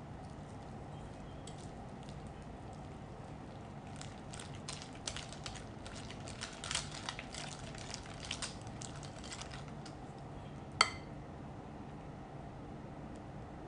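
Wire whisk beating cream cheese in a glass mixing bowl: a run of light clicks as the wires strike the glass, then one sharp clink about three-quarters of the way in.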